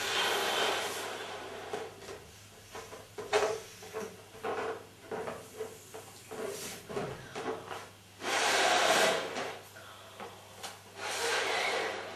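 A woman blowing into a green latex balloon to inflate it: long breathy blows, one at the start and two more about 8 and 11 seconds in. In between, her hands rub and squeak on the balloon's rubber.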